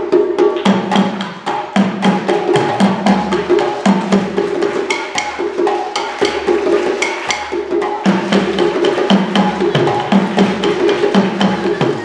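West African hand drumming on djembes: a fast, dense rhythm of sharp slaps and tones. Under it runs a repeating pattern of low pitched drum notes alternating between two pitches.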